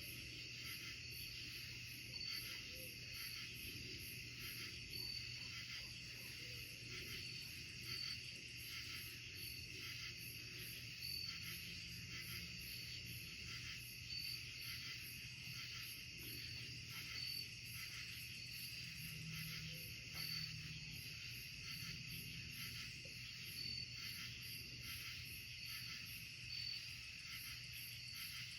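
Night insect chorus of crickets and other insects calling together: a steady high trill with one chirp repeating about once a second and a faster even pulsing above it.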